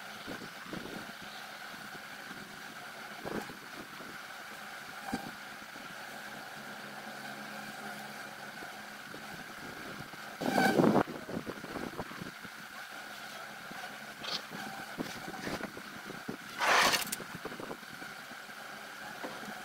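Honeybees buzzing in a steady hum around hives stacked on a truck tray, with two louder buzzes about halfway through and near the end as bees fly close past the microphone.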